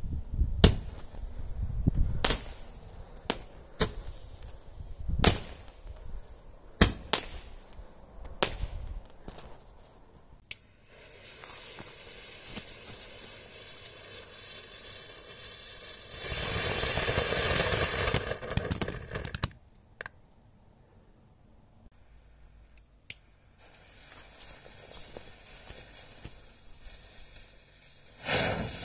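Small consumer fireworks from a Standard Fireworks Lucky Star selection box. About a dozen sharp, irregular bangs come over the first ten seconds, then a ground fountain hisses while spraying sparks, growing louder for a few seconds before dying away. After a short lull a fainter hiss follows, and a new fountain lights with a loud hiss near the end.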